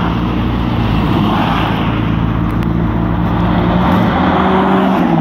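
Car engines running at low revs as cars pull away in slow traffic, a steady low drone, with one engine's pitch rising slightly about four seconds in.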